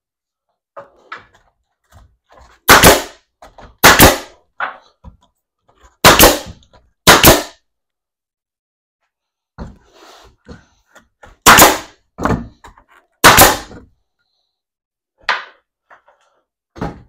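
Loud sharp bangs on wood, six of them in loose pairs, with fainter knocks and clatter between: the timber benchwork frame being nailed or hammered together.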